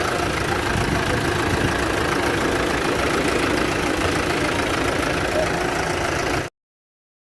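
Isuzu truck diesel engine idling steadily with a rhythmic knock, which the mechanic traces to worn bottom-end (connecting-rod) bearings. The sound cuts off abruptly about six and a half seconds in.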